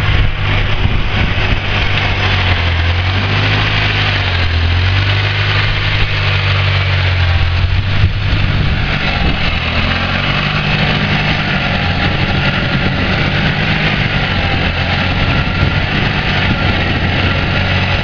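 Engine of a homemade hydraulic backhoe tractor running steadily, its pitch shifting a little a few seconds in and again about halfway through.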